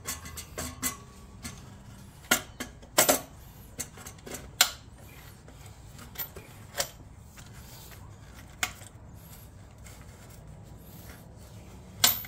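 Metal exhaust parts (muffler, flange, gasket and clamp) being handled and fitted, giving scattered sharp clicks and clinks, the loudest near the end.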